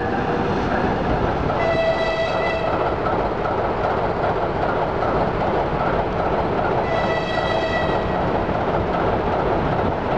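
Electric locomotive horn sounding two blasts of about a second each, roughly five seconds apart, over the steady rumble of a passenger train running through the station.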